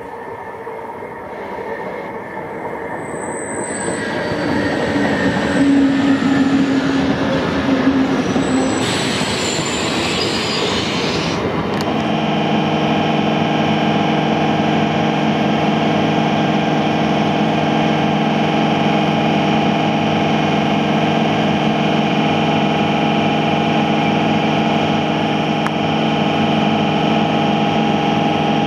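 An electric MEMU local train runs into the station, its rail noise growing louder, with brief high wheel or brake squeals. After an abrupt change about 12 s in, the train gives a steady hum of several fixed tones from its electrical equipment.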